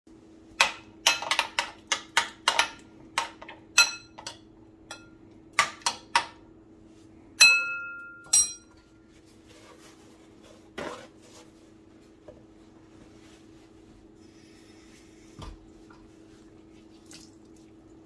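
Metal spoon beating an egg in a ceramic bowl, clinking against the sides in a quick run of strokes, then two louder ringing taps on the bowl. After that come softer rustles of a paper towel being pulled from a roll, over a faint steady hum.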